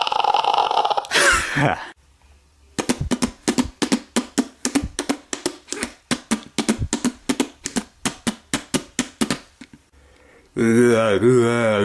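A person making noises with their mouth: a short hissing sound that slides in pitch, a pause, then a long run of quick percussive mouth clicks, about five a second, for several seconds. Near the end a wavering voiced drone starts.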